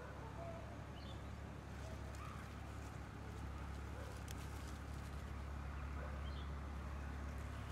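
Faint outdoor ambience: a steady low rumble, a few short bird chirps and scattered light clicks.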